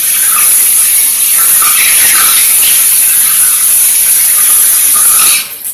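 Water running hard from a tap, a loud steady hiss that stops abruptly about five seconds in as the tap is shut off.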